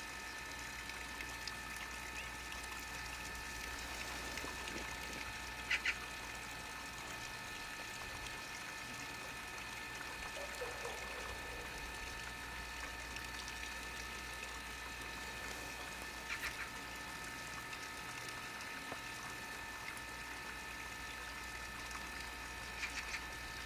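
A steady background hum with several high, unchanging whining tones, broken by a few brief chirps or clicks, a double one about six seconds in.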